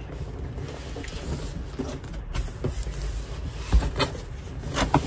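A large cardboard box and its packing being pushed, pulled and shifted while a heavy humidifier is worked out of it: rubbing and scraping, with a dull thump about three and a half seconds in and a few knocks near the end.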